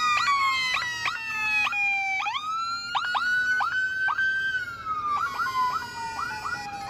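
Police car siren on a slow wail, gliding down, back up and down again, over bagpipes playing a tune with quick grace notes and a steady drone underneath.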